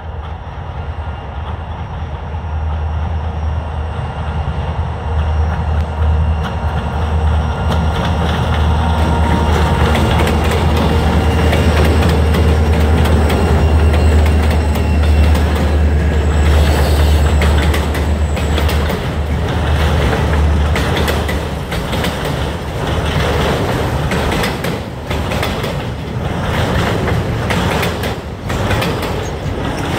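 Freight train passing close by: the locomotive's low engine drone builds as it approaches and drops away about twenty seconds in, then the freight cars rumble and clatter over the rail joints.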